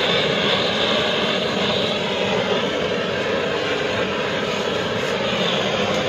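Handheld cartridge gas torch burning with a steady roaring hiss while heat-shrinking the breakout boot of a three-core high-voltage cable termination.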